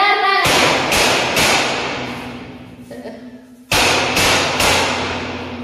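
Hammer blows against a window frame, two sets of three strikes about half a second apart, each ringing on in the bare, empty room.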